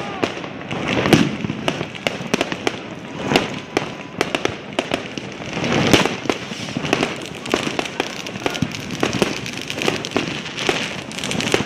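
Fireworks and firecrackers going off without a break: dense sharp bangs and crackling, with louder clusters of bursts every few seconds.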